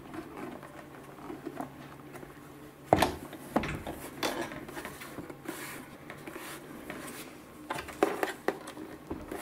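Hard plastic power-station case being handled and turned over: rubbing and scraping, with one sharp knock about three seconds in and a few lighter knocks later.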